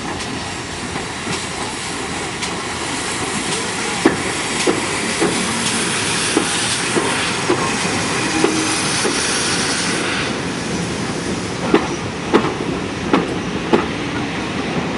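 Steam train passing close by. First comes the locomotive's steam and exhaust hiss, which fades about ten seconds in. Then the coach wheels click over the rail joints in a regular run, about two clicks a second.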